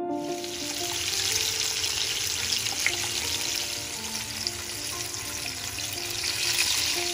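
Flour-and-egg battered chicken fillets frying in a pan of hot oil: a steady, dense sizzle with scattered crackles.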